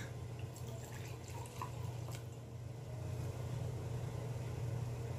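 A glass soju bottle set down on a table, with a few faint light clinks, over a steady low hum.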